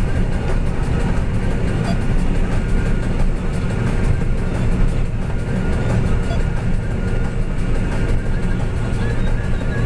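John Deere 9650 STS combine harvester running under load while harvesting canola, heard from inside the cab: a steady, loud, low drone of engine and threshing machinery.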